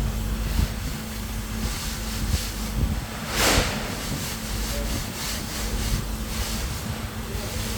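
Mortar being worked with hand tools on a screed: scattered scraping strokes and one loud swish about three and a half seconds in, over a steady low hum of site noise.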